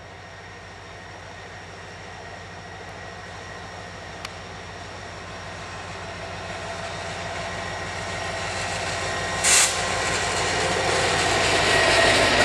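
EMD SD40-2 diesel locomotive with a 16-cylinder two-stroke engine, running as it creeps toward the listener, growing steadily louder as it draws close. About three-quarters of the way in comes a brief, sharp hiss.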